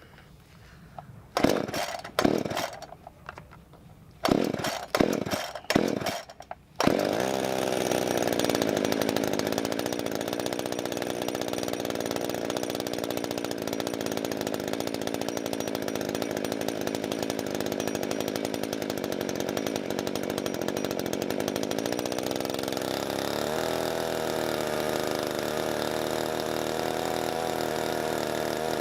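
Freshly rebuilt Husqvarna Rancher 55 two-stroke chainsaw pull-started: several quick pulls, then it catches about seven seconds in and keeps running steadily, its note wavering a little near the end. The saw would run only with the choke pulled, which the owner traces to a missing impulse-line bushing that keeps fuel from being drawn into the carburettor.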